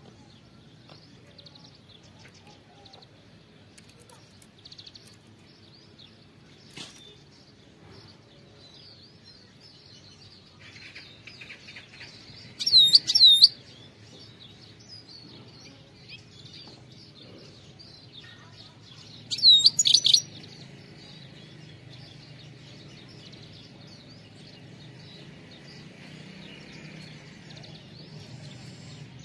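European goldfinch calling: soft high twittering throughout, broken twice near the middle by short, loud bursts of quick, sweeping call notes a few seconds apart.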